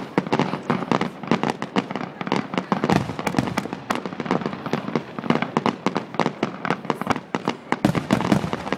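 Fireworks display going off continuously: a dense run of sharp bangs and crackles, several a second, with no let-up.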